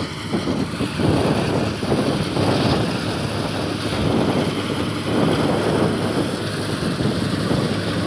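Combine harvester running steadily as it cuts and threshes wheat, a rough, fluctuating drone, with some wind on the microphone.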